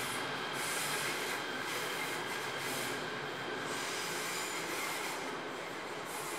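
Steady running noise of a train on the rails, with faint high wheel-squeal tones.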